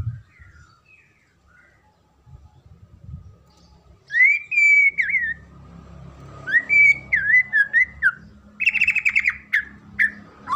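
White-rumped shama (murai batu) singing: loud, clear whistled phrases that rise and fall, starting about four seconds in, followed by a string of short whistles and a rapid trilled run near the end.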